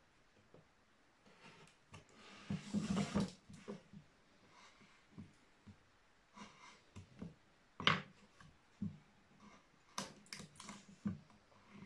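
A carved wooden relief panel being handled on a table: a brief scraping rustle of wood on wood about two and a half seconds in, then scattered light taps and clicks of hands and chisels on the carving.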